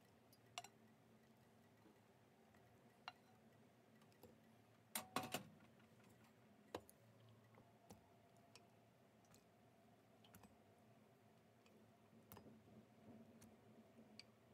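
Near silence with scattered light clicks of kitchenware being handled, and a short cluster of louder clinks about five seconds in.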